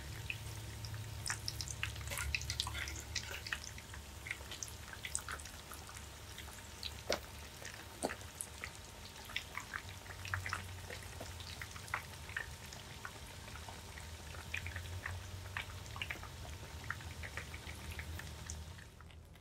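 Breaded corn dogs deep-frying in hot oil: a steady sizzle full of small irregular crackles and pops, with a few sharper clicks.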